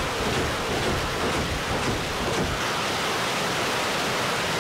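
BM-21 Grad multiple rocket launcher firing a rapid ripple of rockets, heard as a steady, unbroken rushing noise with a low rumble underneath, picked up on a phone microphone.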